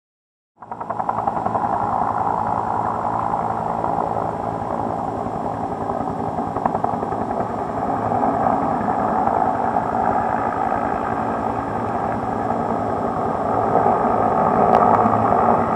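Helicopter flying overhead: its rotor and engine running steadily, cutting in abruptly about half a second in.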